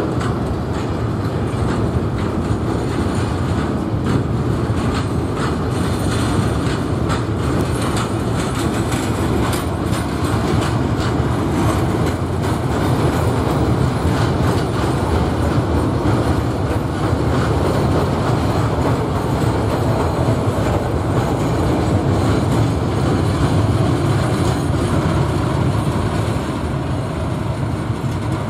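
A train passing on the track: a steady rumble of wheels on rail, with a stream of quick clicks as the wheels cross rail joints.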